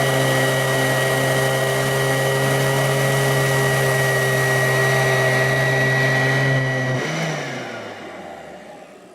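Royal all-metal upright vacuum cleaner running steadily with a high motor whine, then winding down about seven seconds in, its pitch falling as it fades out.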